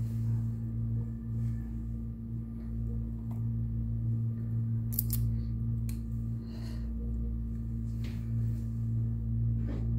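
A steady low electrical hum, with a few faint clicks and taps as bell pepper pieces are laid over the fish and vegetables in the tagine base.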